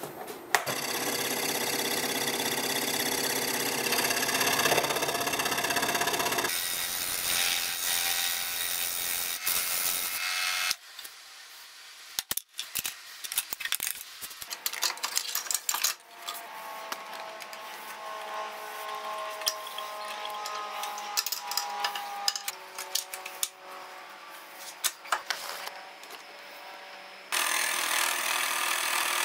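Scroll saw running, its blade cutting wood. About a third of the way in, the sawing stops for several seconds of small clicks and knocks. The saw then runs more quietly for a while, and full cutting resumes near the end.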